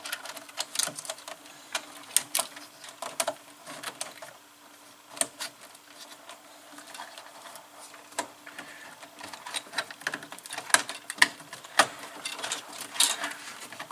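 Irregular sharp clicks, taps and rattles of hookup wires and plastic terminal blocks being handled and pushed into place in an electrical control cabinet, with a faint steady hum underneath.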